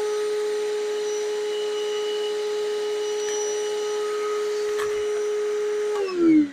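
Hercules 20V cordless half-gallon wet/dry vacuum running with a steady whine while it sucks up nails, with a faint click a little before the end. It is switched off near the end, and the motor winds down with a falling pitch.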